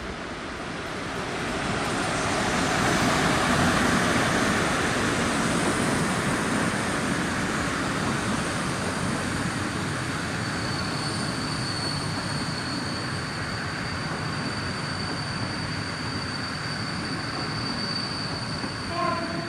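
Passenger train pulled by an EP07 electric locomotive passing close by: the rolling noise swells as the locomotive goes past a few seconds in, then the coaches roll on steadily. A steady high-pitched wheel squeal sets in about halfway through, and a short louder squeak comes near the end.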